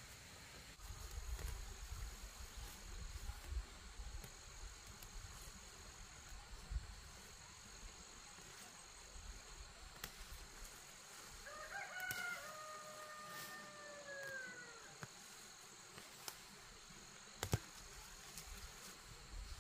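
A rooster crows once, about twelve seconds in: a few short notes, then a long held note that falls away at the end. A high insect buzz pulses on and off throughout, and there is a single sharp knock near the end.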